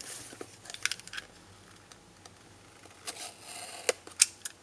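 Small cardboard processor retail box being handled and opened by hand: scattered light taps and scrapes, a short rustle about three seconds in, then a few sharp clicks near the end.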